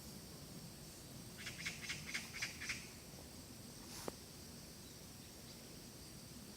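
A bird calling a quick run of about seven short, high chirps, over a faint steady hiss of outdoor background. A single sharp click comes about four seconds in.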